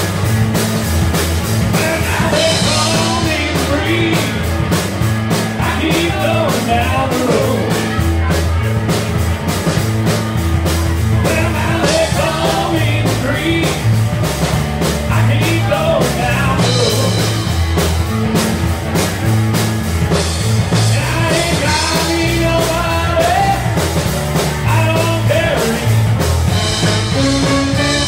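Live rock band playing loudly, with drums, electric guitars and keyboard.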